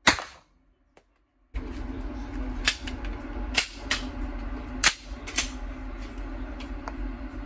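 Gunshots: one loud shot at the very start, then after a second and a half of near silence several more shots at uneven intervals over a steady low hum.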